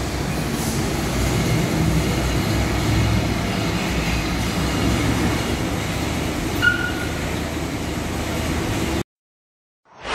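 The 1985 Ford Custom pickup's engine idling as a steady rumble. The sound cuts off abruptly about nine seconds in, and a short swoosh follows near the end.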